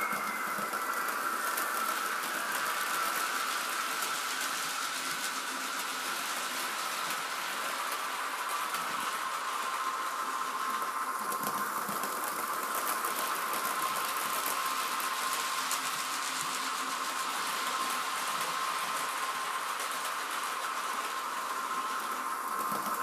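Model trains running on the layout: the steady whine of small electric motors over a continuous hiss and rattle of wheels on track. A higher whine falls in pitch over the first couple of seconds, then the sound holds steady.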